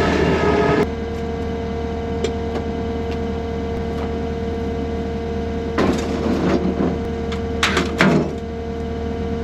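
Engine running steadily with a constant hum, with short clattering noises about six seconds in and again near eight seconds.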